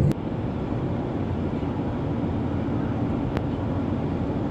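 Steady low rumble of a vehicle running, with a click right at the start and a faint tick about three and a half seconds in.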